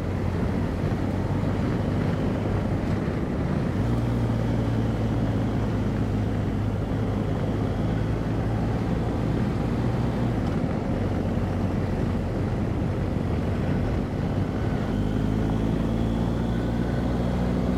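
BMW R1250GS Adventure's boxer-twin engine running at a steady cruise, with tyre and wind noise from riding a gravel road.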